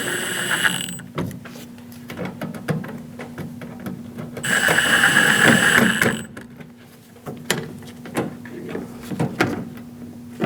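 Cordless power driver snugging down the bolts of a van's rear door trim cover: its motor whines steadily in two short runs, one right at the start and a longer one in the middle, with quick irregular clicking between and after the runs.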